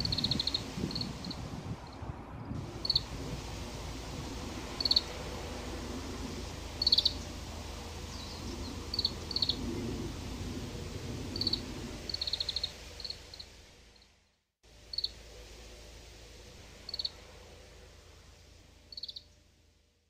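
Oriental greenfinch calls: short, high twittering notes and quick trills, repeated every second or two.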